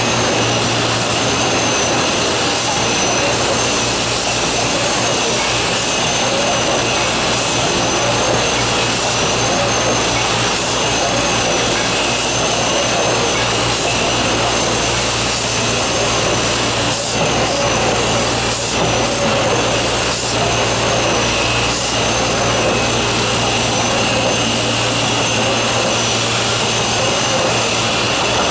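Sakurai SC 102 DX screen printing press line running: a steady, loud machine noise with a high steady whine over it and a low hum beneath, and a few faint clicks in the second half.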